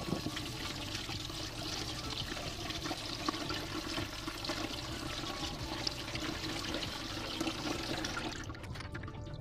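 Cold tap water running over boiled spiral pasta in a plastic colander and splashing into a steel sink as the pasta is rinsed. The water noise is steady and dies away near the end.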